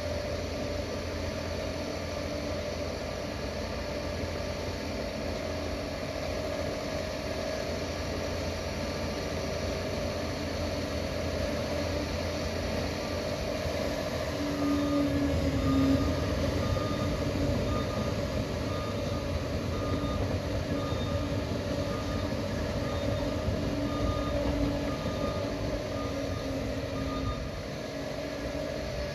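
Steady low rumble of a running vehicle or heavy machine, with a repeating high beep about once a second starting about halfway through.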